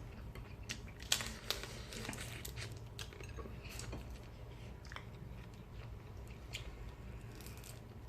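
Chewing and biting on fried fish head, with scattered small crunches and sharp clicks, the two loudest a little after a second in.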